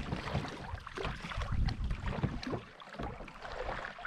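Wind buffeting the microphone and small waves lapping against a plastic fishing kayak's hull, rising and falling unevenly.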